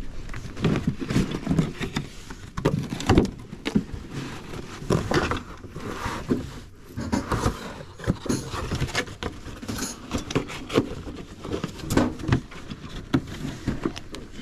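Irregular knocks, clicks and rustles of people moving about and handling things in a small room, with no clear speech.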